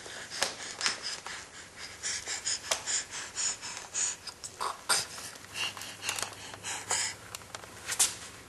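A baby crawling on a hardwood floor: irregular soft taps and slaps of hands on the wood, with the baby's breathing close to the microphone.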